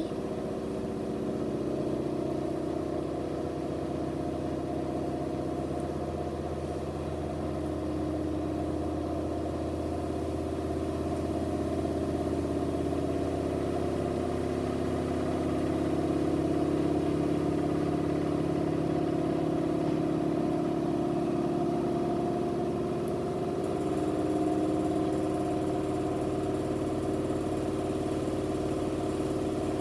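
Electrolux washing machine on its spin cycle, still spinning up toward its 1200 rpm top speed. Motor and drum give a steady hum whose tones shift slowly and grow a little louder, with an unbalanced load.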